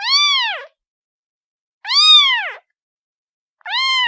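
Kitten meowing three times, about two seconds apart: high-pitched calls that each rise and then fall in pitch and last under a second.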